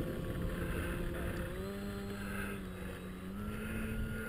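E-flite Mini Pulse XT's stock 450-size brushless electric motor and propeller whining steadily on the takeoff roll, the pitch rising a little about a third of the way in and again near the end as the throttle opens.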